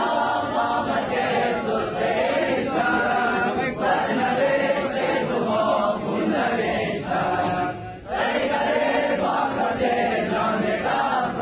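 A large group of men's voices chanting in unison, in long phrases with a brief pause about every four seconds.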